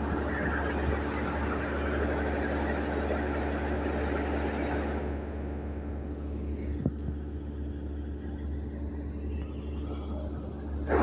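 Combine harvester's engine running steadily at work while its unloading auger pours threshed paddy into a trailer. A rushing hiss over the rumble drops away about halfway through, and there is one short knock shortly after.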